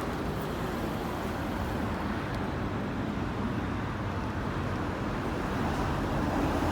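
Suzuki GT380's air-cooled two-stroke triple engine running steadily. The seller presents the fully overhauled engine as free of any abnormal noise.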